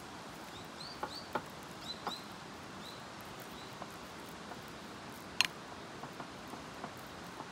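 Wooden spoon stirring and breaking up cooked rice in a ceramic bowl, with a few light clicks of the spoon against the bowl; the sharpest click comes about five and a half seconds in. Short high chirps of a small bird sound several times in the first few seconds.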